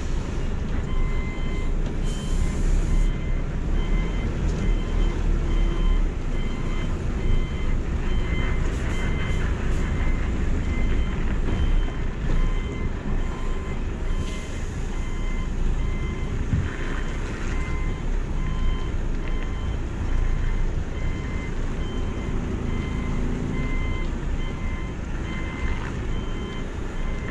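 Heavy truck's diesel engine running low at manoeuvring speed under a steady series of evenly repeated electronic beeps, typical of a reversing alarm as the tractor-trailer is backed. There is a short hiss about two seconds in.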